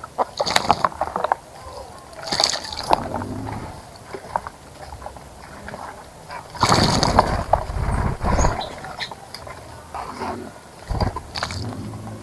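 A small bird bathing in a shallow bird bath, splashing and fluttering in the water in four bursts, the longest and loudest in the middle.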